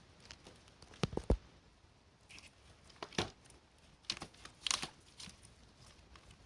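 A small pet drinking water, heard as a few irregular clusters of sharp clicks and taps, the loudest about a second in and again between four and five seconds in.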